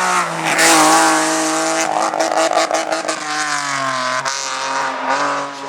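Hillclimb race car engine revving hard up the course, its pitch stepping down with gear changes. A quick series of sharp cracks comes about two to three seconds in.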